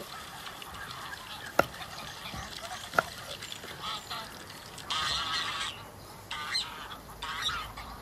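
Farm geese honking and calling, with a run of louder calls in the second half. Two sharp knocks stand out about a second and a half and three seconds in.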